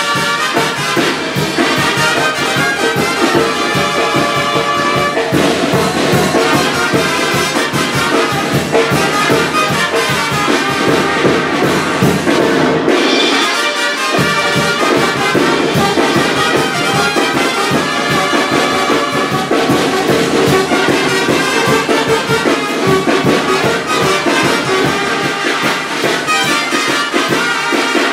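Brass band music with trumpets and trombones playing continuously; the bass drops out briefly about halfway through.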